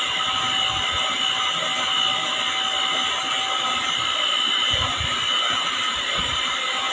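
Electric hand mixer running steadily with a constant motor whine, its beaters whisking eggs and sugar in a stainless steel pot.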